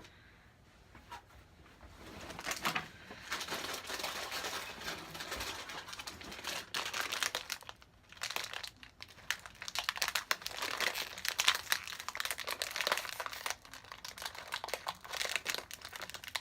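Bag of hot Cheetos crinkling and rustling as it is handled and opened, a dense run of crackles that starts about two seconds in.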